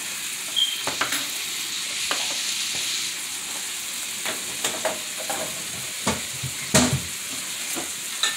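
Ground beef and onions frying in a stainless steel skillet, a steady sizzle. Scattered short knocks and scrapes of a utensil against the pan are heard as the meat is stirred and broken up, the loudest a little before the end.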